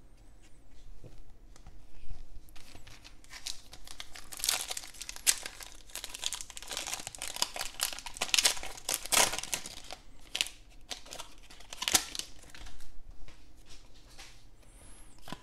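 Foil wrapper of a Donruss football card pack crinkling as it is handled and opened, a dense run of irregular crackles strongest from about four to ten seconds in, with a few more crackles later as the cards are pulled out.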